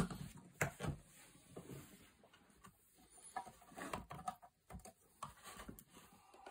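Handling noise from a homemade suitcase drum kit being set up: scattered soft knocks, taps and rustles as the suitcase and its wooden foot pedals and cords are moved into place, with the loudest knock at the very start.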